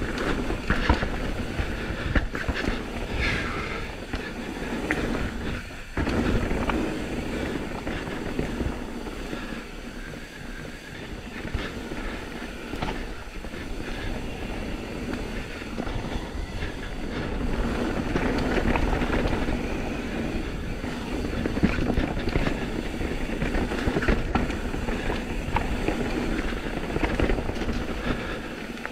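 Intense M16 downhill mountain bike rattling and clattering over a dirt trail, heard close up from a GoPro: a continuous rumble of tyres on dirt with irregular knocks and clicks from roots and rocks.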